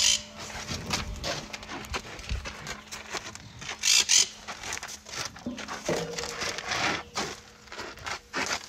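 White rhinoceroses feeding and moving on dry straw and sandy ground: irregular crackling, rustling and scraping. Two short, loud hissing noises come at the start and again about four seconds in.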